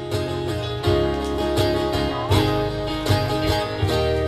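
Acoustic guitar strumming a song's instrumental intro in an even rhythm, over a steady bass line.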